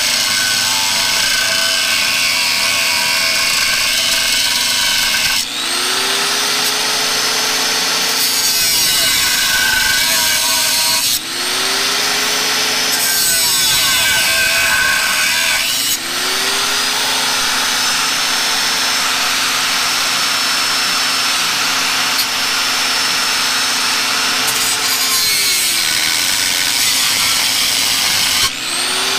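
Electric angle grinder with a cut-off wheel cutting through the sheet steel of a garden tractor's frame, a loud steady grinding hiss. The cut eases off briefly four times, and each time the motor's pitch dips and climbs back.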